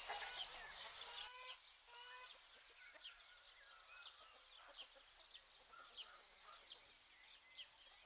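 Hens clucking softly for the first second and a half, then faint, short, high chirps of small birds, each falling in pitch, coming every second or so.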